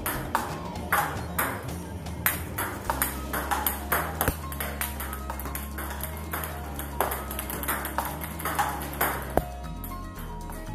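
Table tennis ball clicking sharply and irregularly, about two times a second, as it is struck by rubber rackets and bounces on the table in a rally of backspin feeds and forehand drives, over background music.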